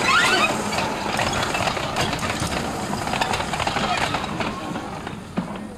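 Quarter-scale model streetcar rolling along its track, steel wheels on rail with a steady rumble and a few sharp clicks, with people's voices over it.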